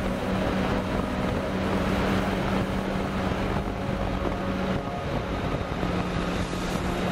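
Yamaha XSR motorcycle engine running steadily at cruising speed, with heavy wind noise on the microphone.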